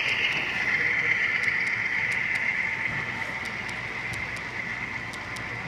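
HO-scale model passenger train running past on its track: a steady whirring hum of its motor and wheels on the rails, fading as the coaches pull away, with scattered light clicks.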